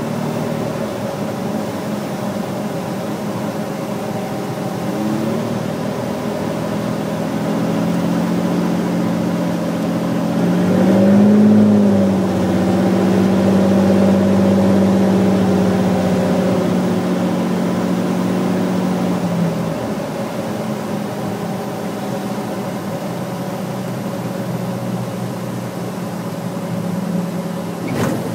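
Cirrus SR20's six-cylinder piston engine and propeller droning steadily, heard inside the cabin on a landing approach. The engine note swells briefly about eleven seconds in, then drops lower about twenty seconds in as power comes back.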